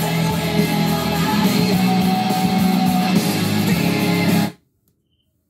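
Guitar-led music played through a DIY Bluetooth speaker box, cutting off suddenly about four and a half seconds in as the track is switched.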